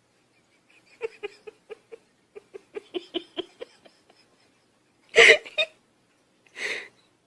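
An animal making rapid short hiccup-like puffs, about four a second, then a sharp loud sneeze-like burst about five seconds in and a softer one near the end.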